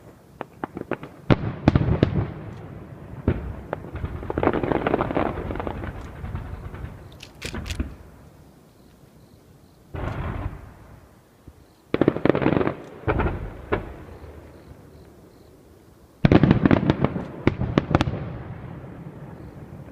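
Aerial fireworks display: clusters of sharp bangs and crackles from bursting shells, about six volleys with quieter gaps between them, each fading away after the bangs.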